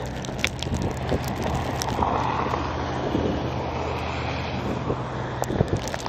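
Storm wind rushing over a tape-wrapped camera microphone, muffled, with scattered crinkling clicks from the tape and a steady low hum underneath; the rush swells about two seconds in.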